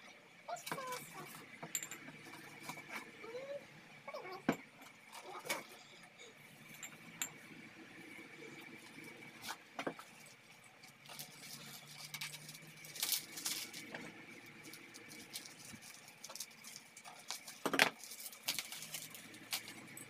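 Paper wrapping rustling and crinkling as glass bottles and jars are unwrapped by hand, with scattered light clinks and knocks of glass and cardboard. A faint steady high tone runs underneath.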